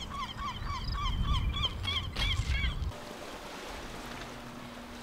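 A bird calling, a run of about a dozen short honking notes, three or four a second, over a low rumble, cut off abruptly about three seconds in. A quieter steady hiss with a faint hum follows.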